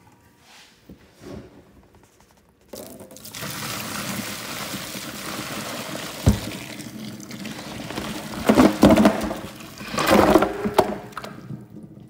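Hot parboiling water from a large stockpot of beef bones and brisket poured out into a stainless steel sink, starting about three seconds in: a steady rush of water splashing into the basin. There is a single knock about halfway through and louder surges near the end. The scum-laden blanching water is being drained off to keep the broth clean.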